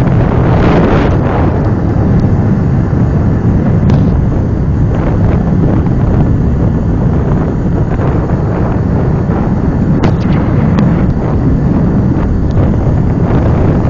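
Loud, steady wind noise on the microphone of a camera carried on a moving bike, with the low noise of the ride underneath.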